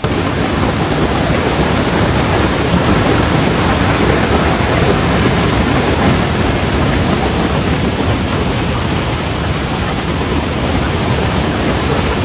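Steady, loud rushing of a waterfall, with no break or change.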